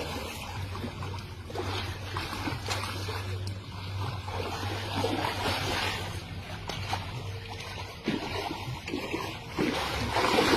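Water sloshing and splashing in irregular bursts, over a steady low hum.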